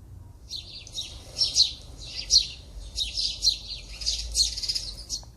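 House sparrow chirping: a quick, busy run of repeated short chirps that starts about half a second in.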